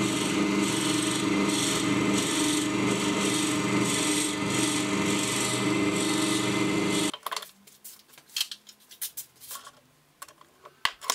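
Forstner bit boring into the end grain of a wooden blank spinning on a wood lathe: a steady, pulsing scraping hiss of cutting over the lathe motor's hum. About seven seconds in, the cutting and the hum cut off sharply, leaving a few light clicks and taps.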